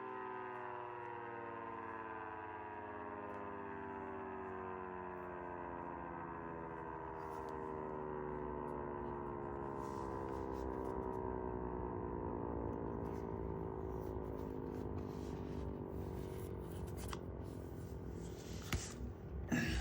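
Mini 3T22A siren core winding down after a full-power run: its chord of several tones slides slowly and steadily down in pitch over a low rumble. A few sharp knocks come near the end.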